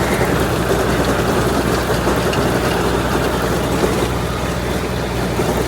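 Tractor engine running steadily, a low even hum under a loud broad rush of machinery noise.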